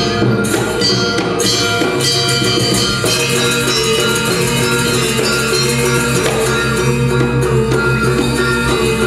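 Balinese gamelan playing: bronze metallophones ringing in layered steady tones over a rapid, even pulse from kendang drums, with gongs in the ensemble.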